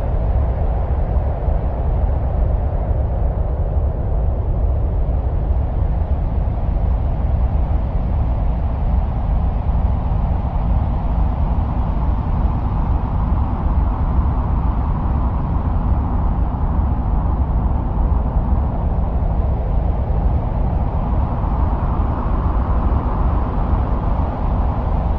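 Steady, deep wind-like rushing and rumbling presented as the sound of Mars, with a hollow band of noise that slowly rises and falls in pitch, like gusting wind.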